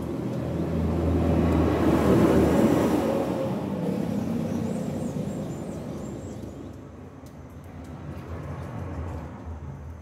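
A motor vehicle passing by, growing louder over the first two to three seconds and then slowly fading away.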